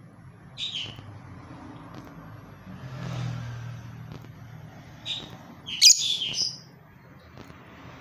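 Masked lovebird (blue mutation) giving sharp, high chirps: one about half a second in, another near five seconds, and a louder, longer screechy chirp around six seconds.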